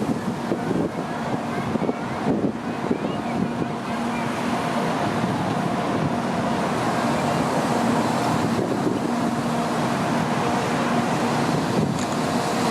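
Shinkansen train passing over a level crossing: a steady rumbling noise, joined about four seconds in by a held hum with two steady tones, with wind buffeting the microphone.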